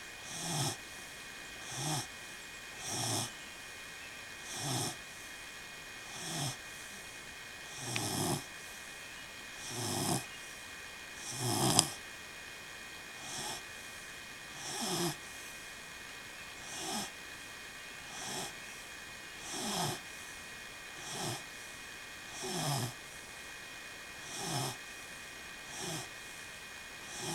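Slow, regular snoring, one short snore about every one and a half seconds, over a faint steady hum. One sharp click near the middle.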